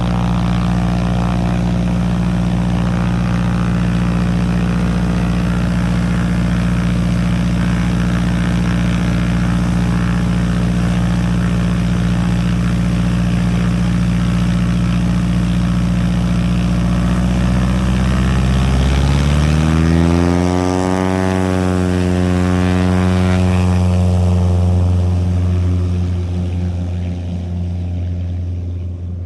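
Single-engine light aircraft's piston engine and propeller running steadily at low power, then opening up to full throttle about two-thirds of the way through as the plane begins its takeoff roll. The note then drops in pitch and fades toward the end as the plane moves away down the field.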